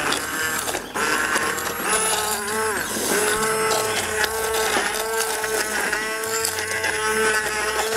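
Hand-held immersion blender motor running steadily in a saucepan, puréeing softened vegetables and red-wine marinade into a sauce. The whine dips briefly in pitch about three seconds in, then holds steady.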